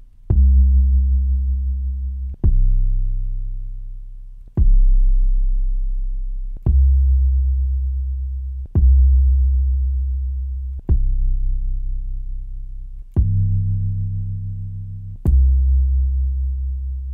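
Eight 808 bass samples with a kick drum in front, auditioned one after another about every two seconds. Each is a sharp kick hit followed by a long, deep bass tone that slowly fades, all tuned to C.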